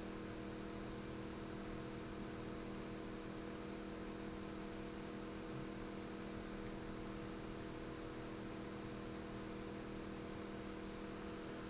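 Steady electrical hum with a faint even hiss underneath, unchanging throughout; no handling or punching sounds stand out.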